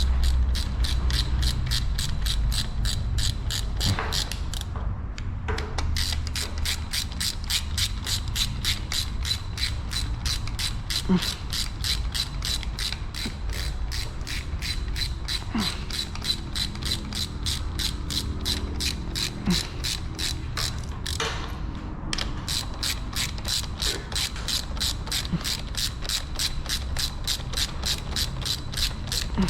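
Ratchet wrench clicking steadily as it runs down the cylinder head bolts of a Yamaha FZ 2.0 engine, about three clicks a second. The clicking breaks off briefly about five seconds in and again around twenty-one seconds. The bolts are only being snugged, not yet torqued.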